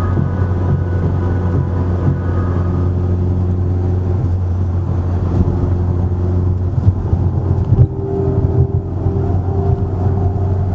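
Audi A3 driving at highway speed: a steady engine and road drone with no revving change.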